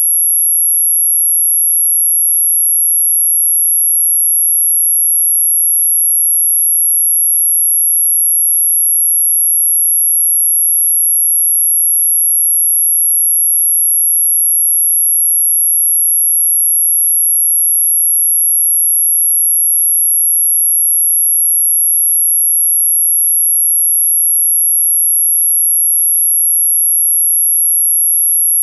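A single continuous, very high-pitched pure tone, held steady at one pitch and one loudness: an electronically generated anti-mosquito repellent tone.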